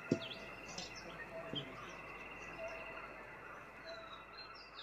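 Outdoor ambience of small birds chirping, with short rising and falling calls scattered throughout over a steady high-pitched drone. There is one short knock right at the start.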